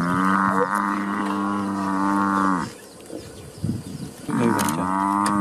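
African buffalo bellowing in distress while under attack by lions: a long, steady-pitched bellow lasting nearly three seconds, then a second one starting about four seconds in.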